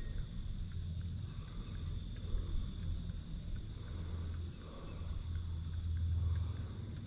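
Wind rumbling on the microphone, swelling and easing in gusts, with a faint steady high-pitched tone underneath.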